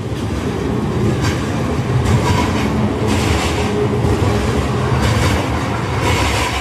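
A loud, steady low rumble with a hiss over it, building over the first couple of seconds and easing off near the end, like a heavy vehicle passing close by.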